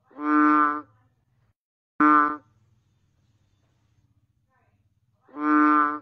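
An Asian painted frog (banded bullfrog) calling three times, its throat sac swelling with each call: one call of under a second at the start, a short call about two seconds in, and another starting near the end.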